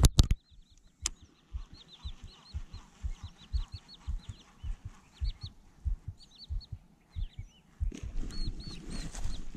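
Birds calling over and over in quick, short high chirps, with irregular low thuds beneath them. A couple of sharp clicks sound near the start, and a louder rustling noise comes in for the last second and a half.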